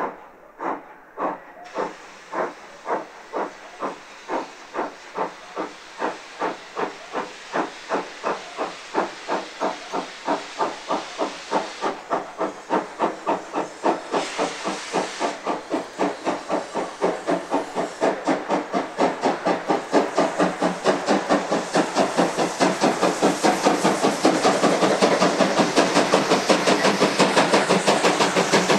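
Prussian P8 steam locomotive 38 2267 approaching under steam, its two-cylinder exhaust chuffing in a steady rhythm that quickens from about one and a half to about four beats a second as it gathers speed, growing louder as it nears. A steady hiss runs under the beats from about two seconds in.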